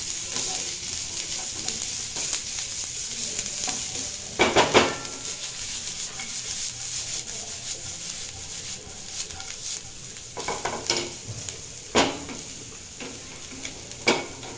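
Grated carrot and sliced French beans sizzling in oil in a non-stick pan while a wooden spatula stirs and scrapes them, with a few louder knocks against the pan about four and a half seconds in, around eleven and twelve seconds, and just before the end. The vegetables are being fried until soft.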